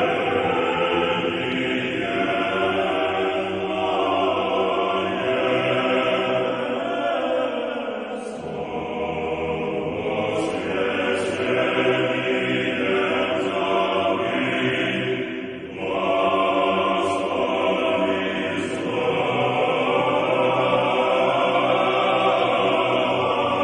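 A choir chanting, several voices holding long, slow notes, with a brief drop in loudness about sixteen seconds in.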